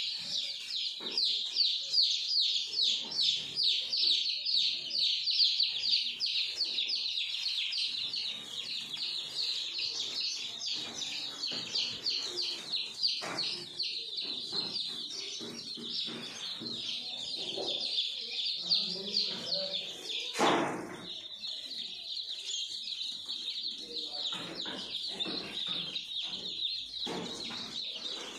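A brooder full of Kadaknath chicks peeping constantly, many quick, high chirps overlapping into one dense chorus. A single knock sounds about twenty seconds in.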